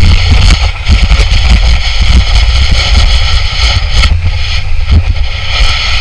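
Snow tube sliding fast down a packed snow lane: a loud, steady rumble and hiss of the tube running over the snow, with wind buffeting the microphone.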